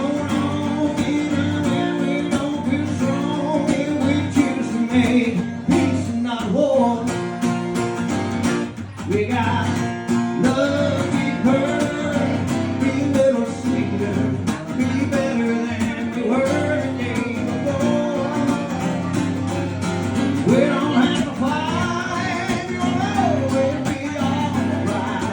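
Live acoustic guitar music from an original country-style song: strummed chords with a melodic line bending over them.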